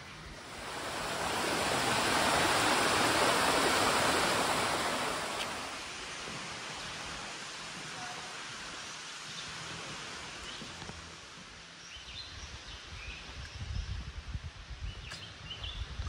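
Rushing water swells up over a few seconds and fades again, leaving a quieter outdoor background. Near the end come a few faint bird chirps and irregular low thumps.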